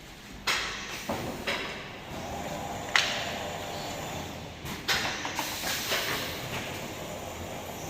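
Glass screen-printing machine in operation: mechanical clunks and knocks over a steady hiss and rattle, with the sharpest knock about three seconds in.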